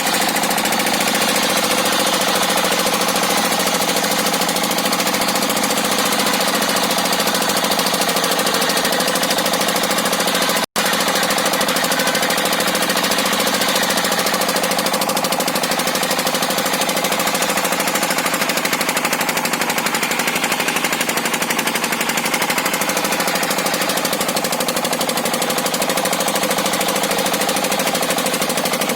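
Engine-driven circular sawmill running steadily, its blade cutting into a tough hardwood log, with a few steady tones over a dense mechanical noise. The blade has not been filed, so the saw and its engine are labouring in the wood. The sound cuts out for an instant about ten seconds in.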